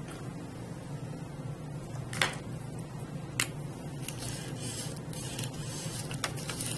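Brush-tip marker scribbling on a thin paper coffee filter, a soft scratchy rubbing that is strongest in the second half, with two sharp clicks a little over a second apart near the start, over a steady low hum.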